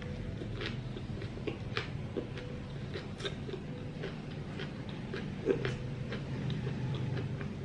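A person chewing a mouthful of fresh spring roll (rice paper wrapped around shrimp, pork and greens) close to the microphone, with many small wet mouth clicks at an uneven pace and one louder click about five and a half seconds in. A low steady hum runs underneath.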